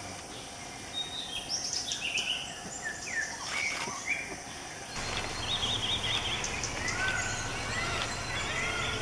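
Forest ambience: several birds chirping and giving short warbling calls over a steady background hiss. The background noise steps up about five seconds in.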